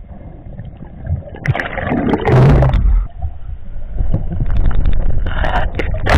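Muffled underwater rushing and gurgling picked up by an underwater camera, with bubbles and water churning around it. It comes in two loud spells, about a second and a half in and again about four and a half seconds in, with a few sharp knocks.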